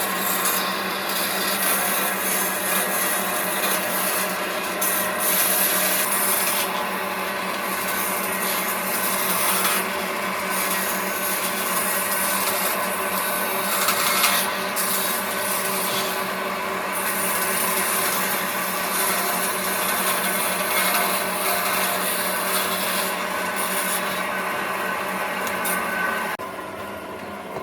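A power tool working wood, running steadily with its sound shifting as it moves over the piece, then stopping shortly before the end.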